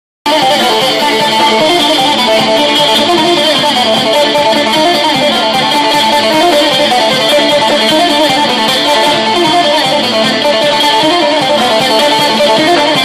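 Greek bouzouki picked fast: a busy melody of quick, bright plucked notes.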